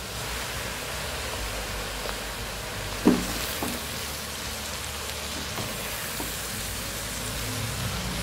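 Chopped fresh fenugreek leaves being stirred with a spatula into chana dal frying in a pressure cooker pot: a steady sizzling hiss with the leaves rustling, and a sharp clink of the spatula against the pot about three seconds in, ringing briefly, with a few fainter taps later.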